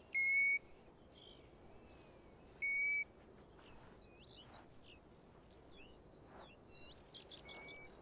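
European golden plover calling from its nest: two loud, short, even-pitched whistles, one right at the start and a second about two and a half seconds later. After them come faint chirps and twitters of birds.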